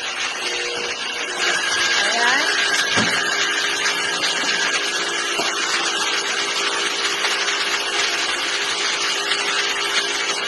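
Kawasaki MY-280 electric high pressure washer (2 HP motor driving the pump) running steadily, a constant motor hum with a dense hiss over it.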